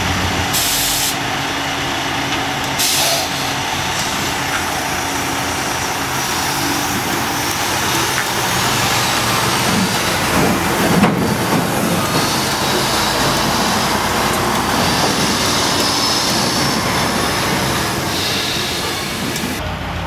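Heavy diesel machinery running steadily: a lattice-boom crane's engine working as it lifts a precast concrete bridge section, with a tractor-trailer's engine running alongside. Two short hisses of air come in the first few seconds.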